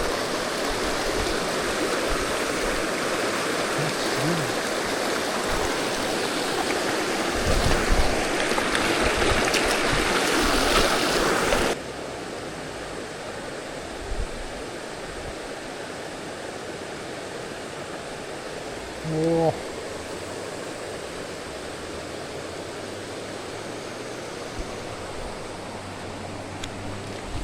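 Mountain river water rushing steadily over rocks, loud and even, dropping suddenly to a quieter steady rush about halfway through. There are a few low thumps early on.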